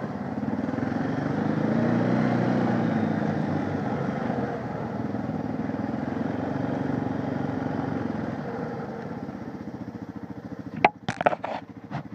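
Honda 500 ATV's single-cylinder four-stroke engine running under way, the engine note rising and then easing off as it rides on and fades. A few sharp knocks near the end.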